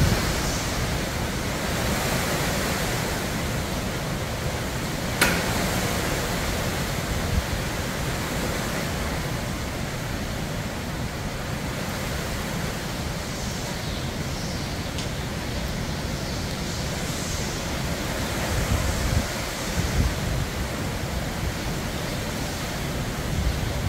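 Hurricane wind and heavy rain making a steady rushing noise, with stronger low gusts about three-quarters of the way through. A single sharp click sounds about five seconds in.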